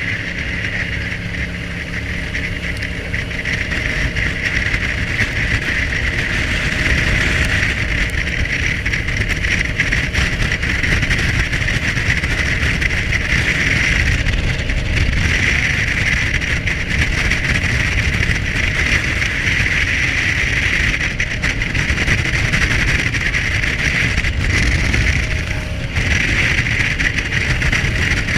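Jet boat running at speed on a river: a steady engine drone mixed with rushing water, getting louder over the first few seconds.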